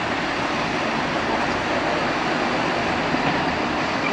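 Diesel engine of a loaded MAN tipper truck running steadily under load as the truck climbs a gravel ramp.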